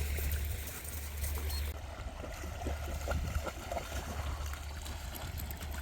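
Small waves lapping and trickling among rocks and shells at the water's edge, with a scatter of small irregular splashes over a steady low rumble.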